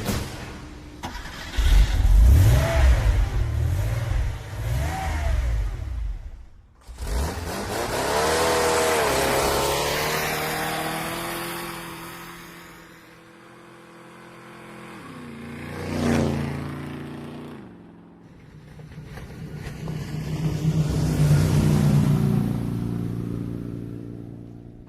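A motor vehicle engine running and revving: a deep rumble at first, then a hum whose pitch slides down and up as it swells and fades, loudest about two-thirds of the way through and building again near the end.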